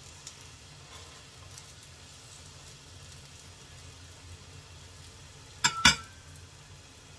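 Pancake batter sizzling gently in hot oil in a frying pan, with a few small ticks as a metal spatula works under its edge. Near the end, two sharp metal clacks from the spatula against the pan.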